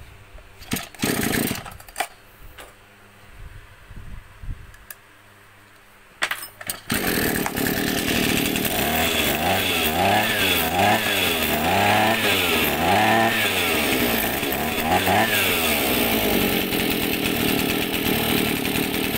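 A few brief knocks and handling sounds, then the Maruyama 26cc two-stroke brush-cutter engine (34 mm bore) catches about seven seconds in and runs loudly. It is revved up and down about six times, rising and falling in pitch, then settles into a steady idle.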